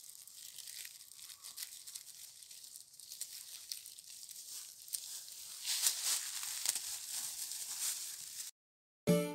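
Thin plastic disposable gloves crinkling and rustling as fresh leaf shoots are plucked from a Korean bladdernut shrub, with small crackles and snaps. The crackling gets busier about six seconds in, then cuts off just before music starts at the very end.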